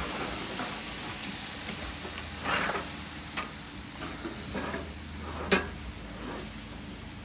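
Ribs and steak sizzling on a charcoal grill over grey coals, with scattered clicks and short scrapes; one sharp click about five and a half seconds in is the loudest.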